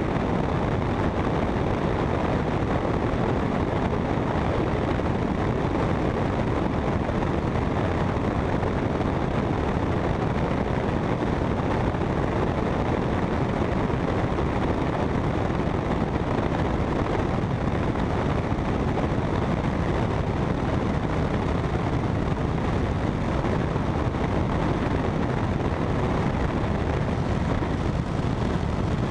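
Helicopter in flight: a steady, unbroken rush of rotor and engine noise mixed with wind on the GoPro's microphone.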